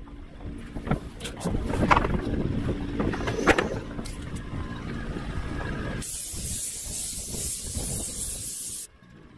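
Knocks and clatter from an airless spray gun being handled on a corrugated steel roof. About six seconds in, the airless gun sprays primer with a steady hiss for about three seconds, then cuts off suddenly.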